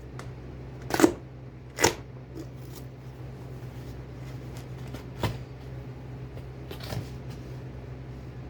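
A cardboard box and its packaging being opened and handled: a few sharp crackles and knocks, the loudest about one and two seconds in, two more near five and seven seconds, over a steady low hum.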